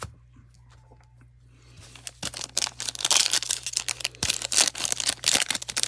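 A trading-card pack's foil wrapper being torn open and crinkled by hand, a dense crackling that starts about two seconds in.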